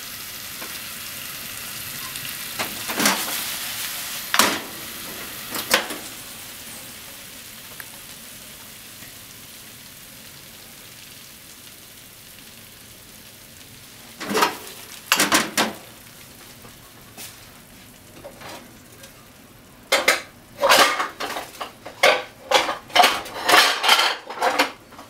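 Potatoes, onion and pork sizzling in a frying pan, the sizzle slowly fading, while a utensil stirs them and knocks and scrapes against the pan. There are a few scattered knocks at first, then a rapid run of clanks near the end.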